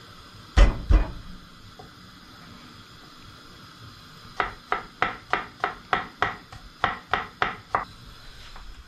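Knife chopping garlic cloves on a wooden cutting board. Two heavy knocks come about half a second in. From about four seconds in there is a run of about a dozen quick, even chops, about three a second, which stops near the eight-second mark.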